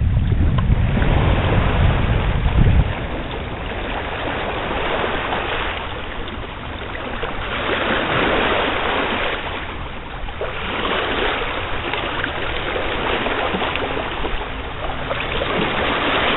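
Wind buffeting the microphone as a low rumble that cuts off sharply about three seconds in. After that, small waves wash against the rocky shore, swelling and fading every couple of seconds.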